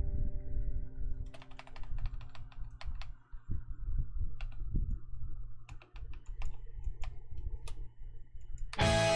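Irregular clicks and taps of a computer keyboard and mouse over a low room rumble, as the last held notes of a song fade out. Music starts again loudly just before the end.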